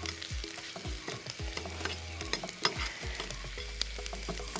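Finely chopped garlic and curry leaves frying in hot oil in a kadai, a steady sizzle with many sharp crackling pops. The crackle is the sign that the oil is hot enough for them to fry properly rather than stay raw.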